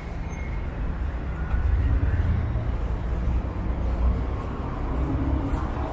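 City street traffic: a steady low rumble of passing vehicles, growing louder about a second and a half in and easing off again toward the end.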